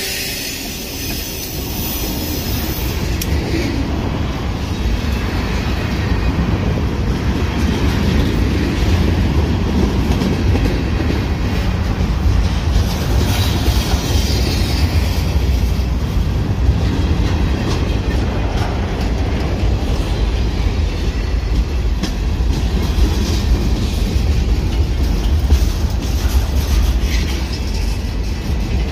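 CSX freight train cars, gondolas and covered hoppers, rolling past close by: a steady heavy rumble with the clatter of steel wheels on the rails.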